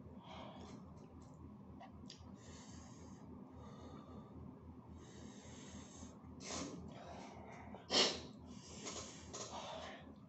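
A man breathing hard in and out through his open mouth in repeated hissing breaths, cooling a mouthful of chilli-hot food. One sharper, louder breath comes about eight seconds in.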